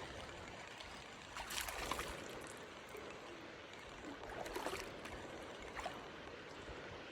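Shallow, low-running mountain river trickling faintly over rocks, with a few faint brief splashy or rustling sounds about a second and a half in, around four and a half seconds in, and near six seconds.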